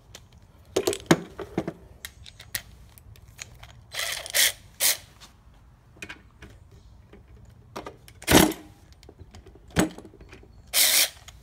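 Metallic clicks and clinks of hand tools on a nut, with a few short noisy bursts, each under half a second.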